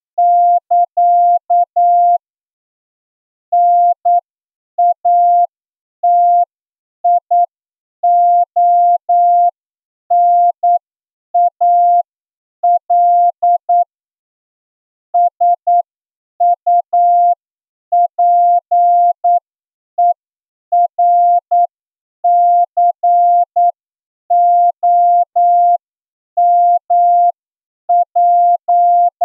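Morse code sent as a single steady pitched tone, keyed on and off in short dots and longer dashes, with brief pauses between letters and longer ones between words. It runs at the slow exam speed of about 8 words per minute, as a receiving-test practice piece.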